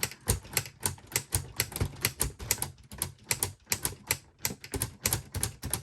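LEGO Ideas Typewriter (set 21327) mechanism clacking: a quick, uneven run of sharp plastic clicks, about five or six a second, as the brick-built keys and carriage are worked.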